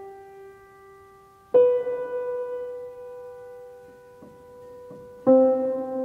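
Piano playing slow, sustained chords: a chord rings out and fades, a new one is struck about a second and a half in, and another near the end, each left to ring.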